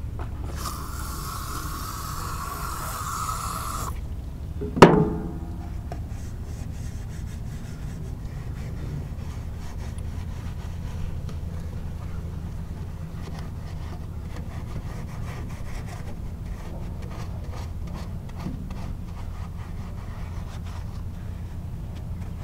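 A rough scrape or rasp lasting about three seconds, then a single sharp metallic clang that rings briefly, over a steady low hum.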